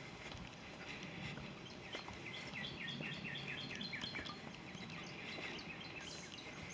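A songbird singing a fast trill of about a dozen repeated, slightly down-slurred notes for about two seconds, starting about two seconds in. Under it are the soft, irregular sounds of someone walking on a dirt trail.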